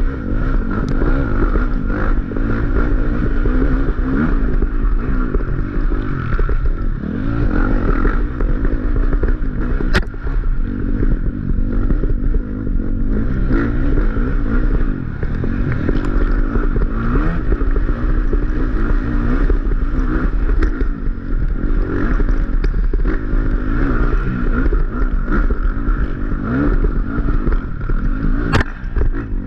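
Off-road dirt bike engine under racing load, revving up and down without a break, with the bike clattering over rough ground. Two sharp knocks stand out, one about ten seconds in and one near the end.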